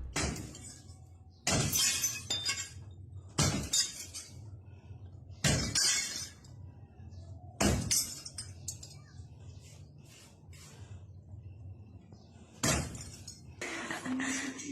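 A series of five loud crashes, the first four about two seconds apart and the last after a longer gap, each with a short clattering tail, like something breaking.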